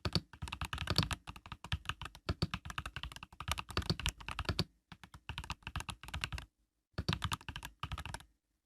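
Typing on an Epomaker EK68 mechanical keyboard with Epomaker Budgerigar tactile switches (POM stems): rapid runs of keystrokes, broken by a few brief pauses.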